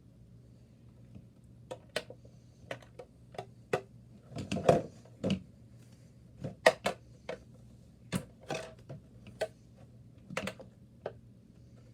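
Irregular sharp clicks and taps of small hard objects being handled, with a couple of short rustles in the middle and no steady rhythm.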